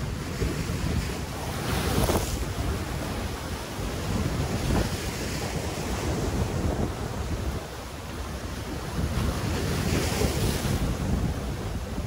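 Sea surf breaking and washing against jetty rocks, with wind buffeting the microphone. Waves crash louder about two seconds in and again around ten seconds.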